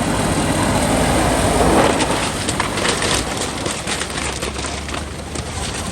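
4x4 off-road vehicle driving, its engine running under a loud wash of noise that eases off after about two seconds, with a run of clicks and rattles through the middle.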